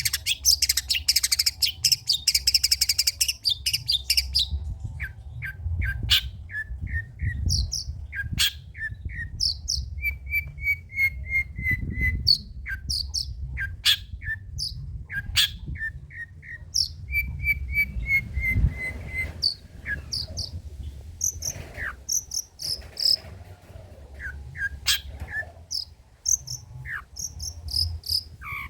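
Long-tailed shrike (cendet) singing a varied song made of imitated calls. It opens with a few seconds of rapid harsh chattering, then moves to short chirps and high whistled notes, twice giving a run of notes that step down in pitch.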